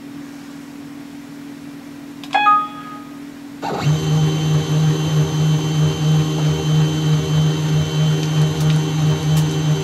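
CNC mini mill starting up about three and a half seconds in: its spindle motor and axis drives run with a steady, evenly pulsing hum and several high whining tones as the head lifts away from the work. Before that a faint steady hum and one brief high chirp.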